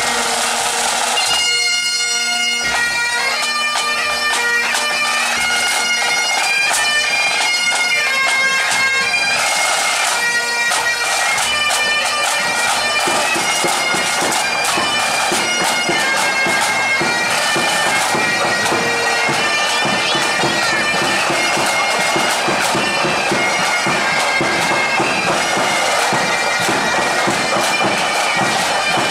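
Pipe band playing on the march: Highland bagpipes sounding a melody on the chanters over a steady drone, with snare drums, tenor drums and bass drum beating time.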